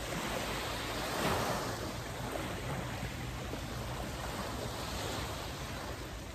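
Small waves washing up onto a sandy beach in a steady wash of surf, swelling briefly about a second in.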